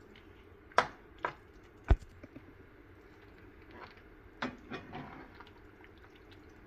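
A few sharp pops and taps from a pan of thick pav bhaji cooking on the stove: three close together in the first two seconds, then a few softer ones near the middle.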